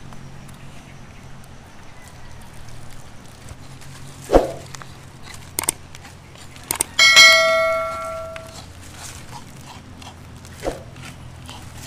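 A sharp knock, then a few clicks, then a single metallic clang that rings on for about a second and a half before fading. Another knock comes near the end.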